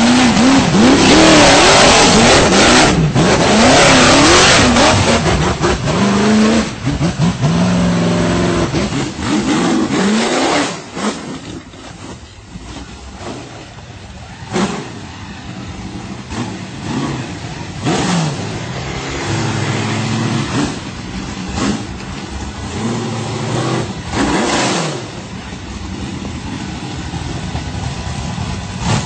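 Off-road tube-chassis buggy's engine revving hard under load on a steep dirt climb, its pitch swinging up and down. It is loudest for the first ten seconds, then drops back to quieter running with a few short bursts of throttle.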